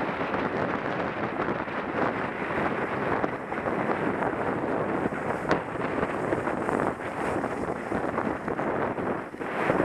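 Wind buffeting the microphone of a camera worn by a moving skier, mixed with the hiss and scrape of skis running over groomed snow; a steady, rough rushing noise that swells and dips.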